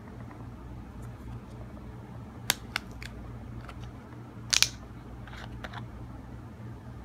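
Plastic screw cap on a paper drink carton being twisted open: a few sharp clicks, then the loudest crackle a little past the middle, and a few lighter clicks after.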